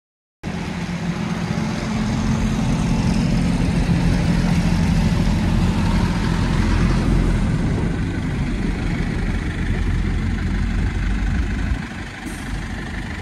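Truck engine running close by: a steady low hum that fades and drops away near the end.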